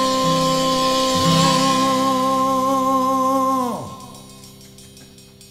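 A band holding the final note of a song. A little under four seconds in, the whole sound slides steeply down in pitch and dies away.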